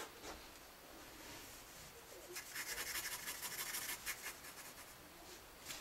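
Pencil scratching on paper in a run of rapid shading strokes, loudest from about two and a half to four seconds in; faint.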